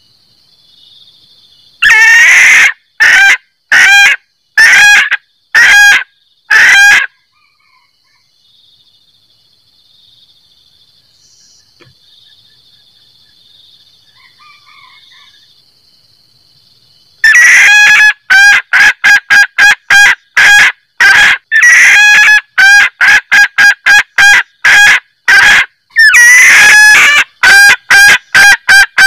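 Female junglefowl's cackling 'kekek' call, played as a lure to draw in males. Six loud calls come about a second apart from about two seconds in. After a quiet spell with a faint steady high hum, a fast run of calls, about three a second, starts at about 17 seconds and carries on to the end with one short break.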